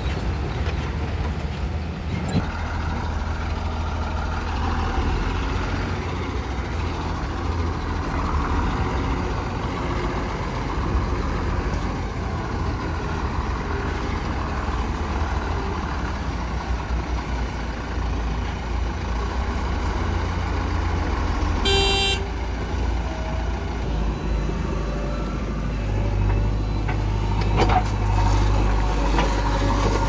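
Heavy diesel engines of a Tata tipper truck and a JCB 3DX backhoe loader running steadily, with one short beep about two-thirds of the way through. Near the end the engine note steps up and steadies as the backhoe digs.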